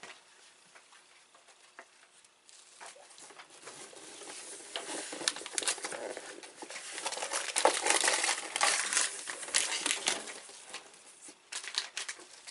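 Plastic snack packaging crinkling and rustling as it is handled, faint at first, loudest in the middle and dying away near the end.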